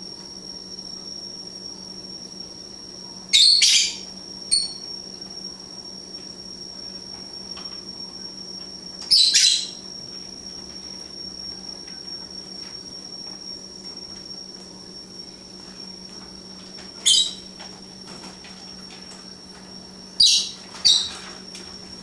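Pet lovebirds giving short, shrill chirps, about six of them spaced several seconds apart, over a faint steady high whine.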